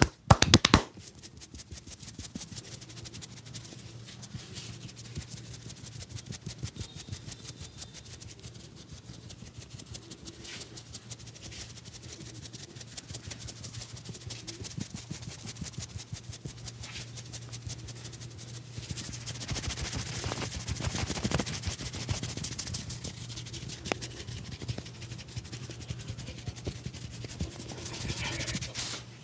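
A barber's hands rubbing briskly over skin during a massage, many quick strokes a second that grow louder for a few seconds past the middle, over a low steady hum.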